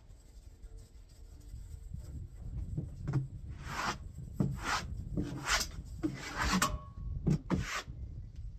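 A series of short scraping rubs, about one a second, over a low rumble of wind on the microphone.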